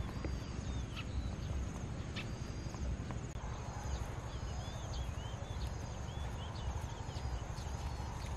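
Open-field ambience: a steady high insect buzz, with a bird giving repeated short chirps through the middle, over a low rumble. Soft footsteps in grass.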